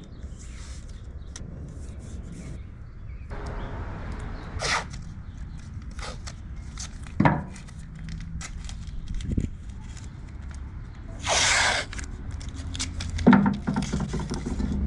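Scattered handling noises: clicks and knocks with a few short rustling or tearing bursts, the loudest about eleven seconds in, over a low steady rumble.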